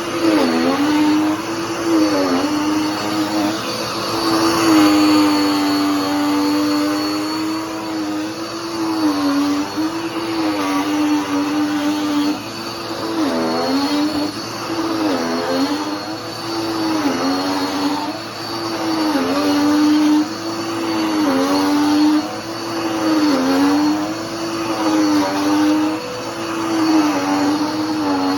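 Dirt Devil PowerMax Pet upright vacuum cleaner running, its motor hum dipping briefly in pitch every second or two as it works, with a thin high whine above.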